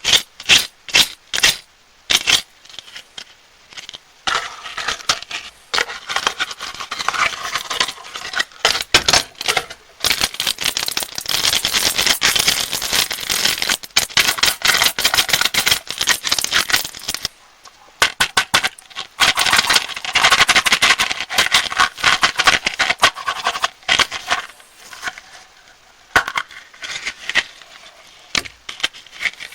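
Crinkling and crackling of plastic candy wrappers being handled and torn open. It starts with a few sharp separate crackles, then runs in long dense stretches of crinkling.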